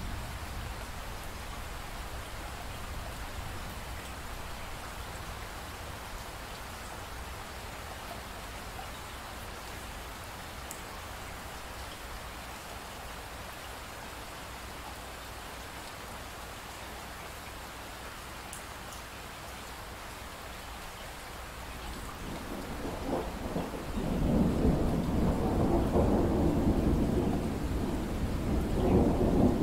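Steady rain falling, with a long roll of thunder that builds about three-quarters of the way through and rumbles loudly near the end.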